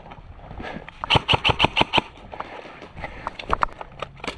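Airsoft gun firing a quick string of about seven shots at roughly seven a second, then a few scattered clicks near the end.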